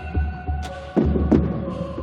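Ensemble show music: a deep, throbbing low pulse repeating under held synthesizer tones, with sharp ticks scattered over the top.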